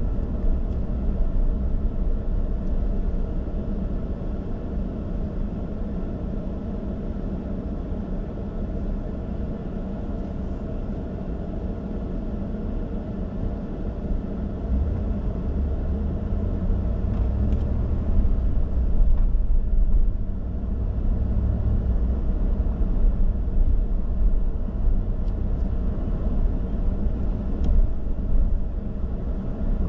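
Car being driven: a steady low rumble of engine and road noise, swelling for a few seconds a little past the middle, with a few faint clicks.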